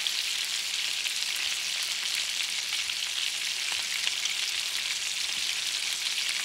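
Meatballs frying in hot oil in a skillet: a steady sizzle with fine crackling.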